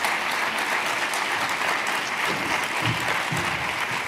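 Audience applauding steadily, a dense patter of many hands clapping, welcoming a speaker to the podium.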